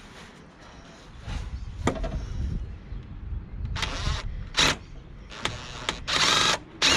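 Cordless impact driver run in several short bursts, the longest and loudest about half a second, on the fog-light retaining screws of a BMW E36 front bumper, with handling noise before them.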